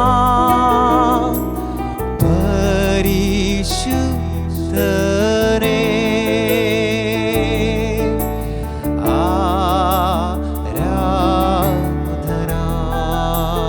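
Live worship music: an electronic keyboard holds sustained chords under a wavering melody line with vibrato, sung without clear words.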